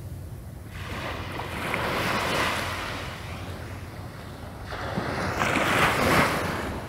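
Small waves breaking and washing up the beach in two surges of hiss, one about two seconds in and a louder one near the end, with wind rumbling on the microphone.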